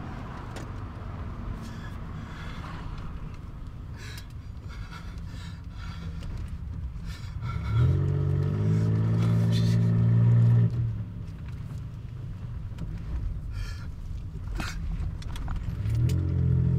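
Steady low rumble of a car driving, heard from inside the cabin, with scattered light clicks. A loud, low, steady tone comes in about eight seconds in, holds for about three seconds and stops abruptly, then returns briefly near the end.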